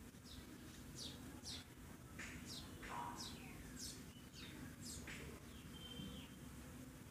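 Faint bird chirps: short calls sweeping downward in pitch, about two a second, over a low steady hum.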